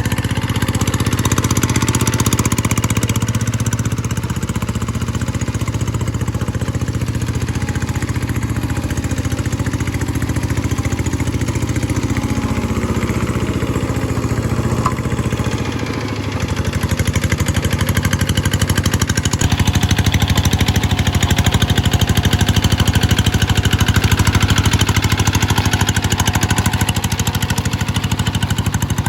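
G1000 hand tractor engine running steadily with an even firing beat. About halfway through it dips briefly, then runs louder for the rest.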